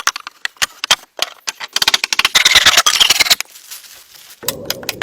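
Woodworking hand-tool noise: a run of sharp clicks and knocks, with a dense scraping stretch from about two to three and a half seconds in.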